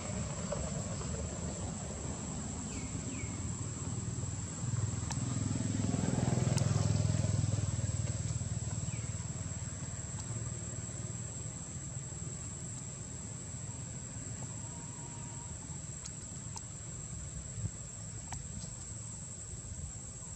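Outdoor ambience: a steady high insect drone over a low rumble that swells about five seconds in and fades away over the next few seconds, with a few faint short chirps.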